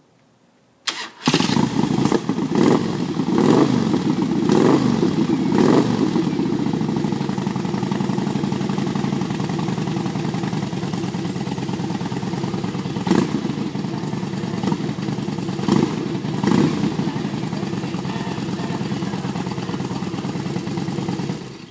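Harley-Davidson Road Glide's fuel-injected V-twin with Vance & Hines Wide Oval true dual exhaust, cranked and catching about a second in. It is revved a few times, settles to a steady idle, and is switched off just before the end.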